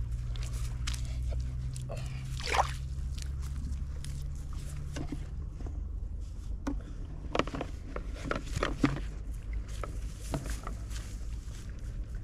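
Irregular water splashes and sloshing, loudest in a cluster about two-thirds of the way through, over a steady low rumble.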